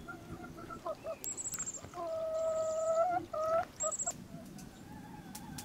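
A chicken calling: a few short notes, then one long held squawk of about a second with a short rising call after it.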